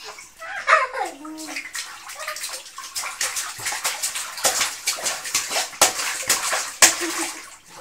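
Water splashing in a small plastic baby bath as a baby slaps at it with its hands, in a rapid run of short splashes through the second half. A child's voice sounds briefly near the start.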